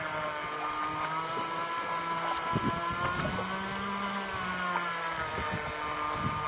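Small boat engine running steadily, its pitch wavering slightly, with a few short knocks about two and a half to three and a half seconds in.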